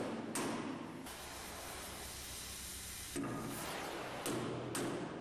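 Gas heating torch flame hissing steadily as it heats a spot on a welded stainless steel sheet to red heat, for flame straightening. The hiss jumps louder a few times.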